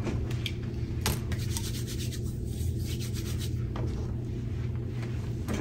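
Steady low room hum with faint rustling from people moving about, and a single light click about a second in.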